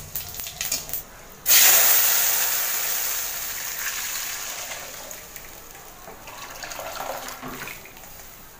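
Boiled dal poured into hot oil tempered with panch phoron: a sudden loud sizzle about a second and a half in that fades slowly over several seconds. Before it, light crackling of the spices in the oil.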